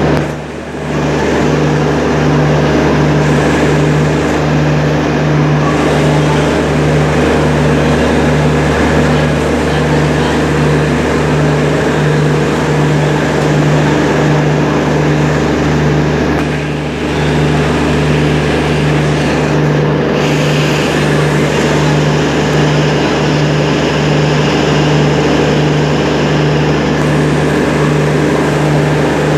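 Diesel generator sets of an ICF generator car running steadily: a loud, even drone with a throbbing low hum.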